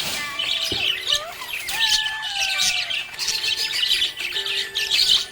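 Budgerigars chirping and chattering happily in a dense, continuous stream, with a few whistled glides in the first couple of seconds.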